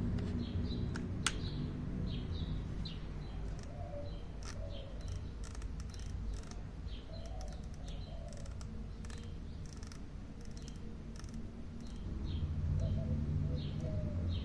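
Small birds chirping repeatedly in the background, over a steady low hum, with scattered light clicks.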